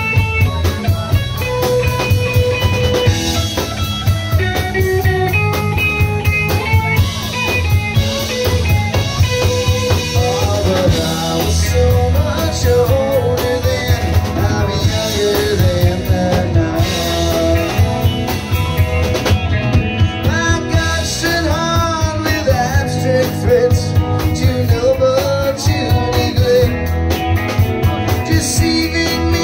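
Live blues band playing: electric guitar lines over bass and a drum kit. A male lead vocal comes in about a third of the way through.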